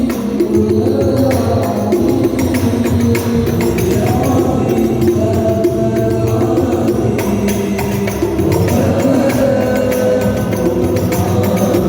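Sholawat devotional singing in Arabic by a group of voices over a steady rhythm of frame drums with jingles, amplified through a sound system during a sound check.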